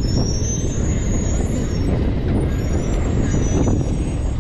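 A steady low rumble, with a faint high whine that wavers in pitch during the first second or so and again near the end.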